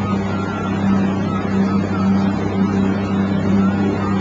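Motorboat engine running at a steady speed, a continuous low drone.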